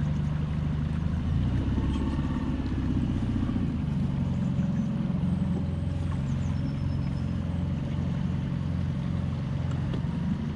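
Small boat's outboard motor running at a steady speed while the boat is under way.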